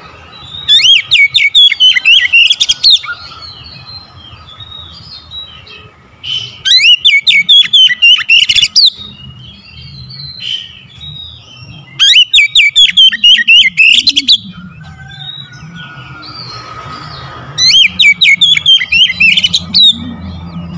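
Oriental magpie-robin singing: four loud bursts of rapid, sweeping high notes, each about two seconds long, with softer chirps in between.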